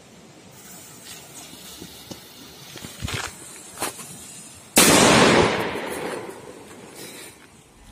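A Mega Black Devil firecracker going off with one sudden loud bang a little under five seconds in, after a few faint clicks. The bang trails off over about two seconds.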